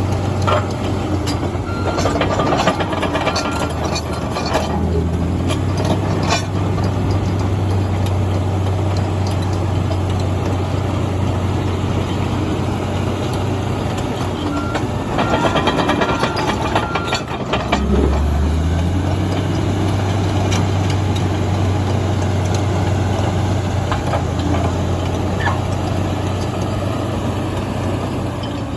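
Komatsu D85EX crawler bulldozer's six-cylinder diesel running steadily under work, with the clanking of its steel tracks. The engine note dips lower for a moment a little past halfway.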